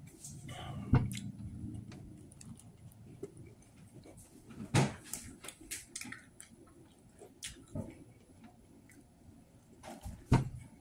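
Handling noises at a table: sharp knocks of a plastic dressing jar being handled and set down, the loudest near the end, with smaller clicks and faint eating sounds between.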